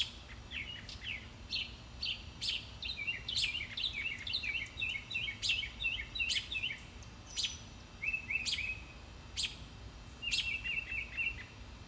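A small songbird calling repeatedly: sharp, high chip notes about once a second, broken by several quick chattering runs of short notes. These are the scolding calls of a bird chasing and mobbing a perched owl.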